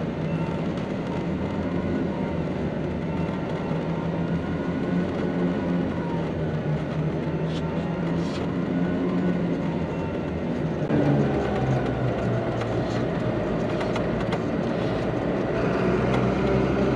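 M35 deuce-and-a-half military truck engine running steadily while the truck is driven. The engine note shifts about eleven seconds in, with a few faint ticks scattered through.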